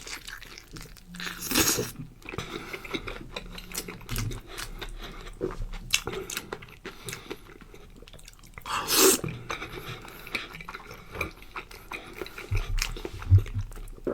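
Close-miked eating of roasted pig's trotters: chewing with wet smacks and crunchy bites, two louder bites at about one and a half seconds and nine seconds in.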